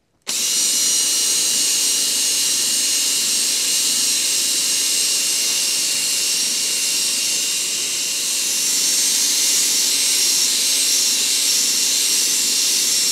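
Cordless drill running steadily with a spinning brush attachment scrubbing shampooed car seat upholstery: a constant motor whine over the hiss of the bristles.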